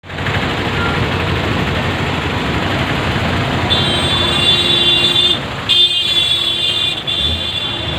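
Steady rushing noise of road traffic and floodwater. A vehicle horn is held for over a second about four seconds in, then sounds again from about six seconds on.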